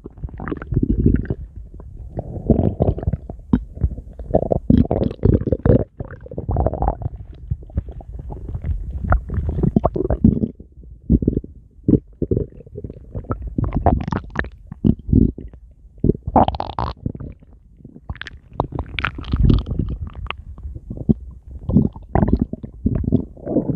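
A man's stomach growling and gurgling without a break, full of small bubbling pops and crackles. A few louder, higher-pitched gurgles come in the second half.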